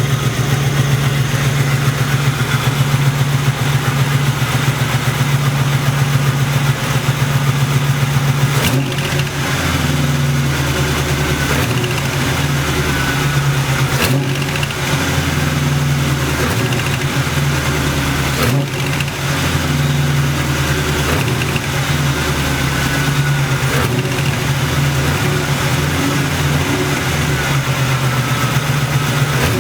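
LT1 V8 running at idle with a knock from the driver's side, which turned out to be an exhaust leak at the rear port of the driver's-side long-tube header. The engine note changes about a third of the way in, and a few sharp clicks stand out.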